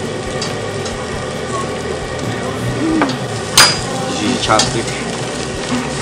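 Lamb sizzling steadily on a tabletop barbecue grill as it is turned with metal tongs, with one sharp clink a little past halfway through.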